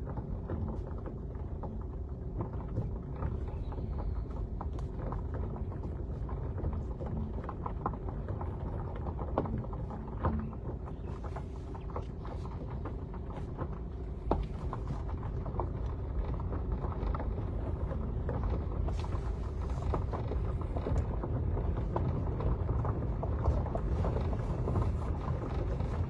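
Car driving slowly on a gravel dirt road, heard from inside the cabin: a steady low engine and road rumble with scattered clicks of gravel under the tyres.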